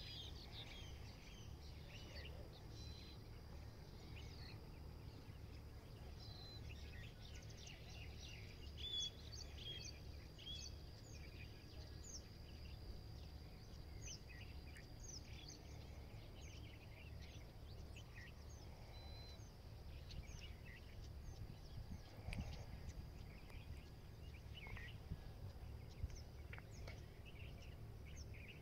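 Faint outdoor ambience of small birds chirping and calling in many short notes throughout, over a steady thin high tone and a low rumble.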